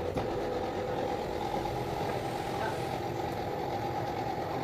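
Hyundai Grand i10 petrol engine idling steadily.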